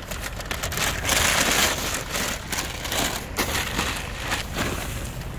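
Dry leaves crunching and rustling, an irregular crackling noise as the pile is disturbed.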